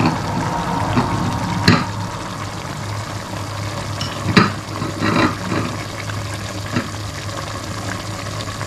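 Pork boiling in a stainless-steel pot of water, a steady bubbling hiss over a constant low hum, with a few sharp clicks of a utensil against the pot.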